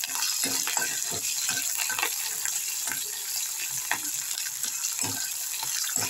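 Dried red chillies, garlic, cumin and curry leaves sizzling in hot oil in a kadai. A spatula stirs them and scrapes and knocks against the pan at irregular moments.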